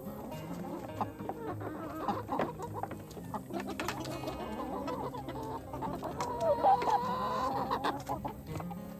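Chickens clucking, busiest about six to seven seconds in, over background music.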